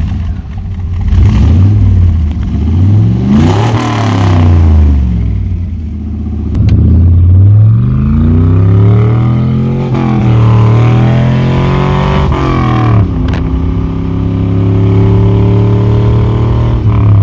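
Carbureted 4.8-litre Chevy V8 with headers in a 1999 Chevrolet S10, heard from inside the cab as the truck accelerates through the gears of its four-speed manual. The revs climb and drop at each shift a few times, then hold fairly steady near the end.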